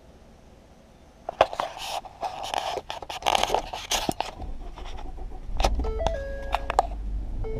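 Keys jangling and scraping as a car key goes into the ignition. About four and a half seconds in, the car engine starts and settles into a low rumble, and a simple tune of held notes begins a second or so later.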